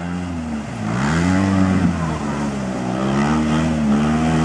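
Polaris RZR side-by-side's engine running under throttle, its pitch dipping briefly about a second in, then climbing and rising and falling as the driver works the throttle.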